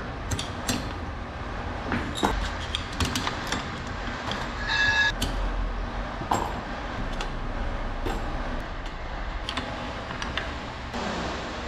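Scattered metallic clicks and taps as the inside of an opened inline diesel injection pump from an OM352A engine is worked by hand with a metal rod, over a steady workshop rumble. A brief high-pitched tone sounds about five seconds in.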